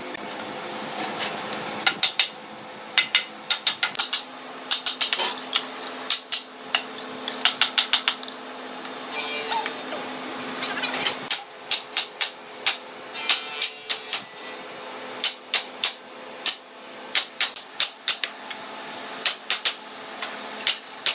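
Hammering on wood: sharp, irregular knocks, some in quick runs of four or five blows, over a faint steady hum.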